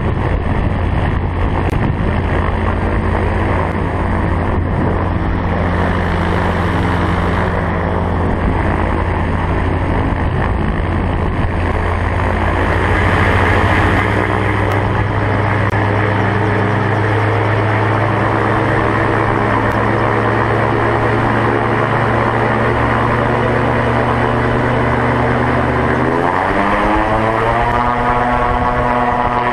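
Autogyro's engine and pusher propeller running steadily. About 26 seconds in, the engine revs up with a smoothly rising pitch and holds at the higher speed.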